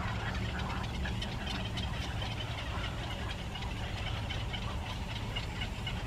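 A steady low rumble under rapid, high-pitched chirping of small birds, several peeps a second.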